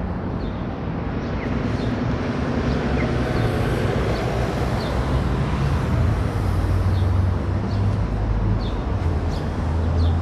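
City street traffic: passing cars with a steady hiss of road noise and a low engine hum that grows stronger about halfway through. Faint short high chirps sound now and then.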